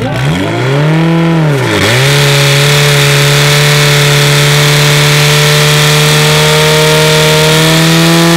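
Portable fire pump's engine revving up to full throttle, dipping once about two seconds in, then held at high revs with a steady note and a strong hiss over it as it drives water out to the hoses.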